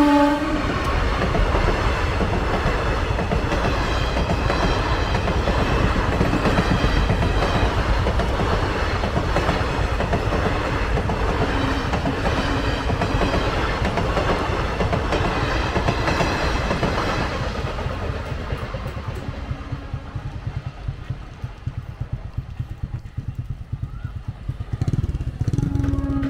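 An Indian Railways electric locomotive and its express passenger coaches pass fast over a level crossing: loud rumble and rattle of wheels on the rails for about seventeen seconds, then the sound fades away as the last coaches go by.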